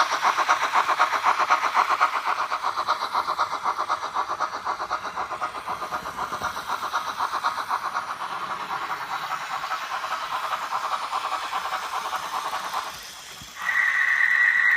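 Sound module of a Trix H0 model 'Stortysker' steam locomotive playing steam chuffs at about four a second, which grow quieter and stop about 13 seconds in. A second later a steady two-tone steam whistle starts.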